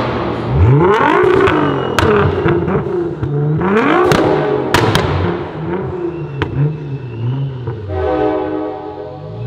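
A tuned performance car engine revved hard twice, the pitch sweeping up quickly each time and falling back to a low idle, with several sharp cracks between the revs. Near the end a steady held tone sounds for about a second.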